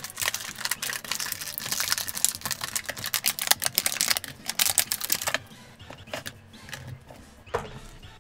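Thin clear plastic packaging crinkling and crackling as small toy parts are pulled out of a bag and tray. It stops about five seconds in, leaving a few light clicks of small plastic pieces.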